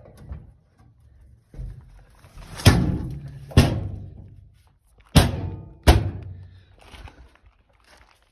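Heavy thunks of things being handled and set down: four loud hits in two pairs, each pair about a second apart, with a brief ringing after each. Lighter knocks and rattles fall between them.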